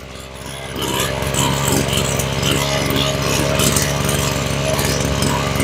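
Maruyama BIG M KC20NX brush cutter's small petrol engine running at idle while its idle speed, set a little high, is adjusted with a screwdriver at the carburettor. It gets louder about a second in, then runs steadily.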